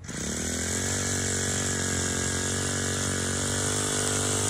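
Small lawn mower engine starting and running steadily; it catches suddenly and climbs in pitch for about half a second as it comes up to speed, then holds an even speed.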